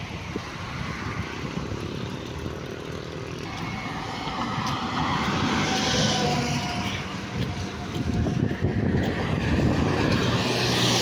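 Road traffic passing close by on a multi-lane road: cars, a pickup and motorcycles drive past with tyre hiss and engine noise. It grows louder from about four seconds in, with loud passes around the middle and near the end.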